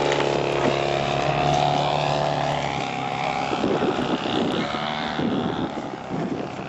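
Radio-controlled model airplane's engine and propeller running as it flies past, fading away over the last few seconds.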